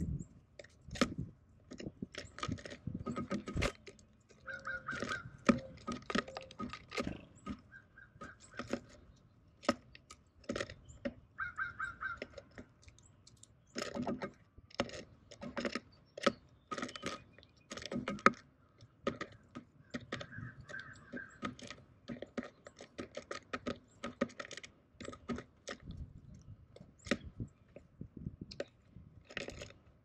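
Irregular pecking, tapping and scratching of a tufted titmouse's bill and feet on a hanging tray feeder and its seed mix as it picks out seeds, heard close up from inside the feeder.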